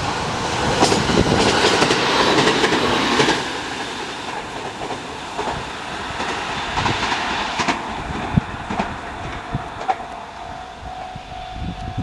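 JR 701-series electric train passing close by, its wheels clattering over the rail joints. It is loudest in the first three seconds, then fades to a rumble with scattered clacks. A steady high tone comes in near the end.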